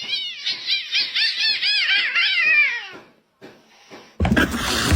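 A kitten mewing rapidly and insistently, about four high, arching cries a second for some three seconds. A louder, noisy sound cuts in near the end.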